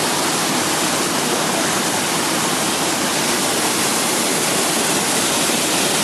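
Air-bubble vegetable washing machine running: the water in its tank churns and splashes with a steady rush as blown air bubbles up through it, tossing the leafy greens.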